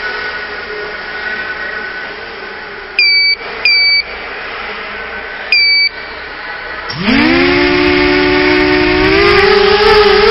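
Three short two-tone electronic beeps, then a CGX 250 racing quadcopter's motors spin up about seven seconds in with a rising whine. The whine settles into a steady high-pitched hum and climbs a little further near the end.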